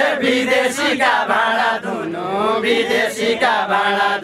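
Group of men singing a Nepali dohori folk song together in a chant-like style, with long held notes.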